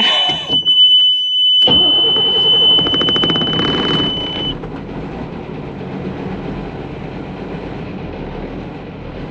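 Mercedes-Benz Unimog U1700L's six-cylinder diesel being started cold. Under a steady high warning tone, the starter cranks for about three seconds from just under two seconds in, then the engine catches, the tone stops, and it settles into a steady idle.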